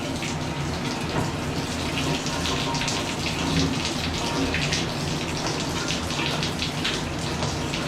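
Running water pouring and spattering over a dog's wet double coat during a bath, a steady hiss with a low hum beneath it.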